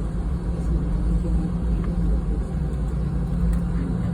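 Steady cabin drone of a Boeing 717-200 in flight: a deep rumble from its rear-mounted Rolls-Royce BR715 turbofans and the airflow, with a constant low hum.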